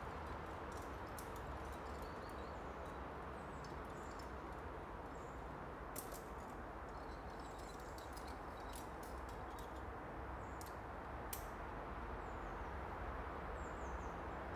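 Outdoor ambience at a wooded crag: a steady low hiss and rumble, with short faint bird chirps now and then and a few sharp clicks in the middle.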